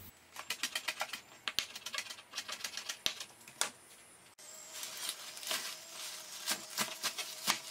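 Chef's knife chopping diced onion on a plastic cutting board: a quick run of sharp taps. After an abrupt cut about four seconds in, softer, irregular knocks as spinach leaves are handled and cut on the board.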